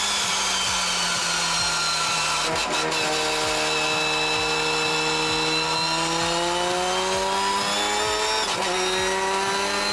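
Race car heard from inside the cockpit, its engine running under the loud whine of straight-cut transmission gears. The pitch sinks slowly for the first half, then climbs again, with a short break near the end.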